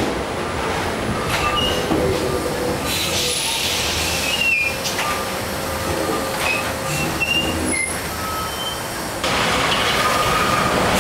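Paris Metro MF 67 train running past on a tight curve: steady rail rumble with several short, high wheel squeals from the steel wheels on the curved track. About nine seconds in, the sound suddenly gets louder.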